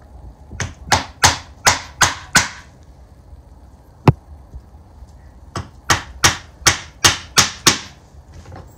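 Claw hammer driving long round wire nails into pallet-wood slats. Two runs of six or seven sharp blows, about three a second, with a single blow between them.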